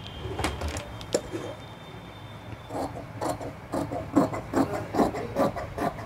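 Large tailor's shears cutting through doubled trouser cloth on a cutting table, a regular run of snips about three a second starting about halfway through. A few light knocks in the first second.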